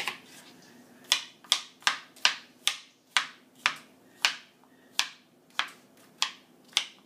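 Kitchen knife chopping a zucchini on a plastic cutting board: about a dozen sharp chops, roughly two a second, starting about a second in.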